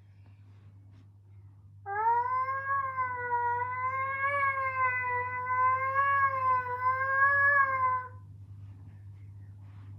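Fictional emergency alert alarm tone: one long pitched tone that starts about two seconds in with a short upward slide, wavers gently up and down in pitch, and cuts off about six seconds later, over a faint steady hum.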